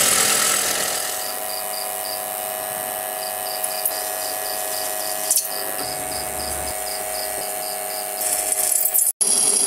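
Drill press motor running steadily while the bit bores into a steel plate cut from a circular saw blade, with a faint high chirp repeating about three times a second. The sound grows louder and harsher near the end. It opens with a brief louder spell of an electric drill spinning an abrasive sanding drum against the steel.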